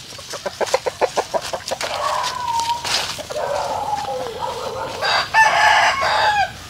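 Chickens clucking rapidly for the first couple of seconds, then a rooster crowing in long drawn-out calls, the loudest a little past five seconds in.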